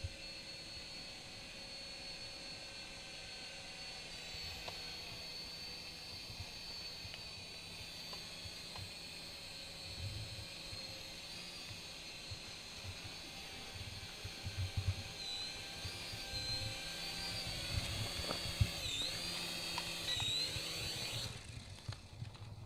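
Small electric motors of a DEERC dual-rotor toy RC helicopter whirring in flight with a steady high-pitched whine. Near the end the pitch wavers and dips several times as the throttle changes, then the motors cut out.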